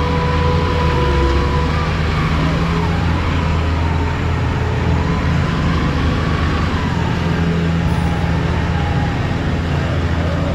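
Motorcycle engine running at a steady road speed with wind noise over the microphone, mixed with the engine of a loaded goods truck just ahead and then alongside.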